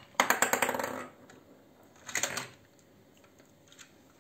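Rapid plastic clicking and rattling from a VTech construction site toy set for about a second, then a shorter burst about two seconds in.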